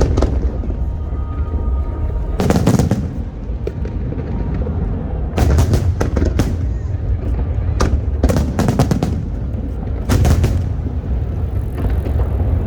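Fireworks display: aerial shells bursting in clusters of sharp bangs every few seconds over a continuous low rumble.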